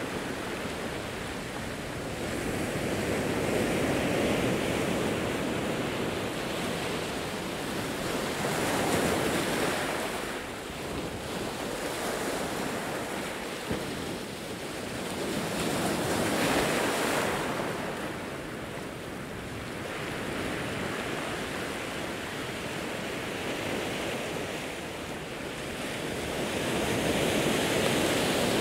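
Ocean waves breaking on a rocky, pebbly shore: a steady rush of surf that swells and falls back every several seconds, with no tones in it.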